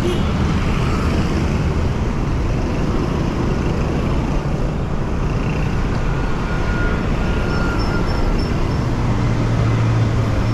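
Steady road traffic noise, with a low engine hum growing louder near the end as a motor vehicle comes close.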